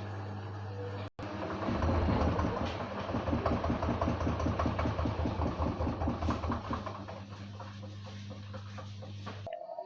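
LG WD-1054FB washing machine running with a steady hum and a loud, rapid, regular pulsing from the drum for several seconds. Near the end the sound drops suddenly and a rising whine begins as the motor speeds the drum up.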